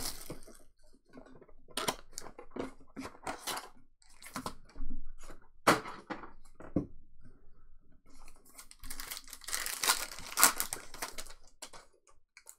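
Plastic wrapper of a trading-card pack crinkling and tearing as it is pulled open and handled, in two spells of dense crackling, with cards being handled between them.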